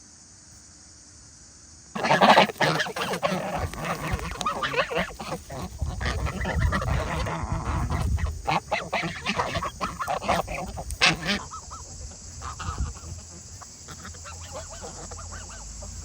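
A flock of farmyard geese honking, starting suddenly about two seconds in and thinning out after about eleven seconds.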